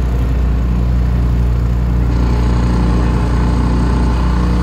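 Small motorboat's engine running steadily under way, a low even drone.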